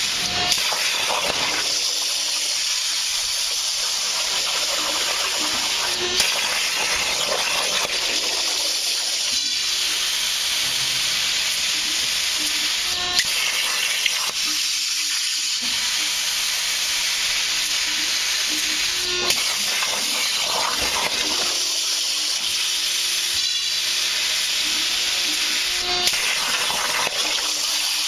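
CNC plasma cutter torch hissing steadily with its arc and air jet as it cuts steel plate. A short sharp pop comes about every six or seven seconds, five in all.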